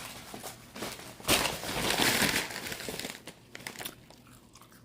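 Fast-food paper packaging crinkling and rustling as it is handled and opened, loudest for about a second midway, then dying down.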